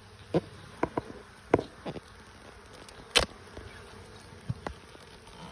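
Honeybees buzzing around an opened hive, with a run of sharp knocks and clicks, the loudest about three seconds in.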